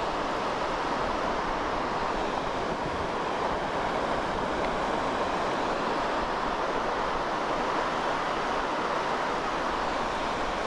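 Steady rush of wind and surf on an open beach, without a break.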